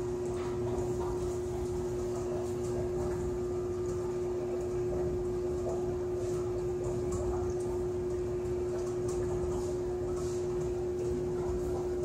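Water-filled acrylic columns of a fluid-air displacement gravity generator running: a steady hum holding one constant tone over a low rumble, with water sounds and faint, irregular ticks.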